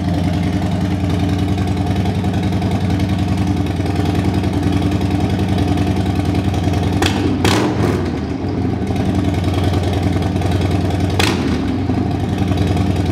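Harley-Davidson Milwaukee-Eight 114 V-twin idling steadily through a Bassani Road Rage 3 two-into-one stainless exhaust run with no baffle. A few sharp cracks cut through about seven and eleven seconds in.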